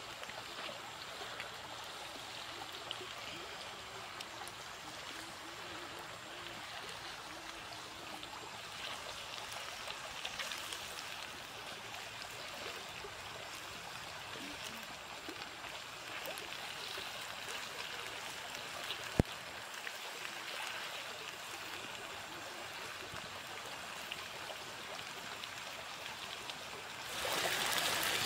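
Steady rushing and trickling of a shallow forest creek, with one sharp click about two-thirds of the way through. The water grows louder near the end.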